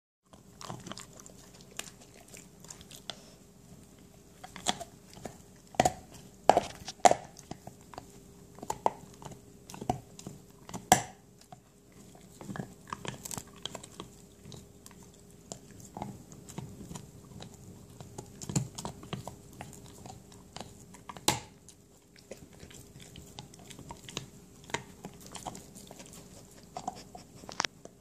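Dog gnawing an elk antler chew: irregular clicks and scrapes of teeth on the hard antler, some far louder than others.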